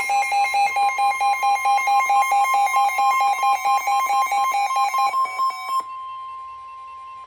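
Electronic emergency alert tone announcing a severe thunderstorm warning: two high tones pulsing rapidly, about five times a second, then a single steady tone, quieter, for the last second and a half, cutting off sharply.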